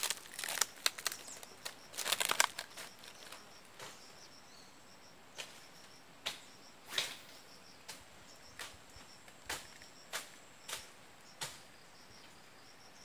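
Rustling of dry brush and clothing with handling clicks as an angler moves on a riverbank. This settles into a string of light ticks, roughly one every second, from the rod and spinning reel being worked, with faint high chirping behind.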